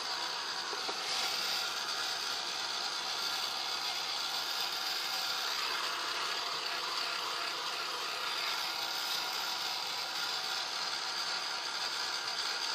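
Steady whirring hiss of a small electric blower motor, running evenly without change.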